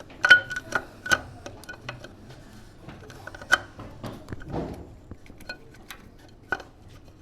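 Irregular metallic clicks and taps of hand tools and engine parts being handled during motorcycle engine disassembly, with a sharper cluster near the start and another knock about three and a half seconds in.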